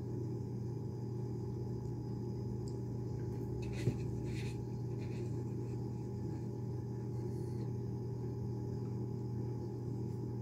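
Steady low electrical hum in a small kitchen, with faint chewing and handling of a soft tortilla wrap a few seconds in and a single sharp click just before the four-second mark.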